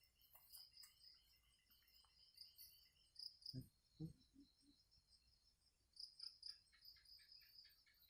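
Faint crickets chirping in quick repeated pulses, with a few soft low thumps about halfway through.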